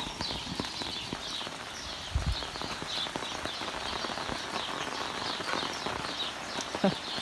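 Rain pattering steadily, with the crackle and rustle of footsteps pushing through wet, overgrown vegetation and a low thump about two seconds in.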